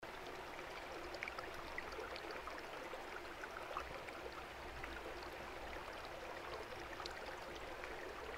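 Steady woodland ambience: an even rushing hiss with a low rumble and faint scattered high chirps, cutting in abruptly at the start.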